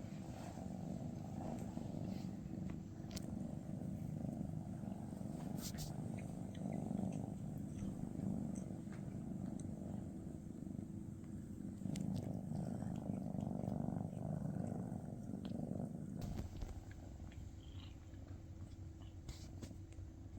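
Maine Coon cat purring close by, a steady rumble that swells and eases, softer for the last few seconds.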